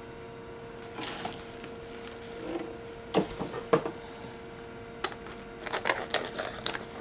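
Hands handling a cardboard box and working the tape on its lid open: a brief rustle, a few sharp taps, then a run of scratchy clicks and scraping near the end. A faint steady hum sits underneath.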